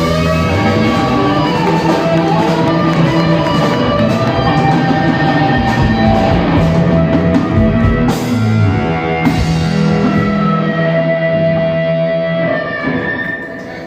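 Live rock band playing electric guitar, bass and drum kit, with a few sharp drum or cymbal hits about two-thirds of the way through and a held note after them. The music drops away near the end as the song closes.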